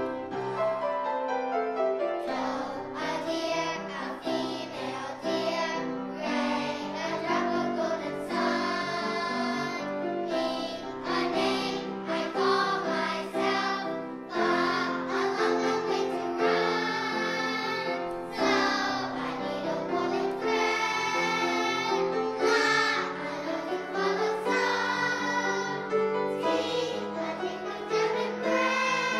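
A children's choir singing a song, with lower accompanying notes held beneath the voices.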